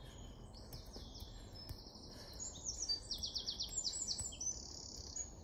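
A small songbird singing: rapid trills of repeated high notes and chirps, louder from about halfway through, over a steady low background rumble.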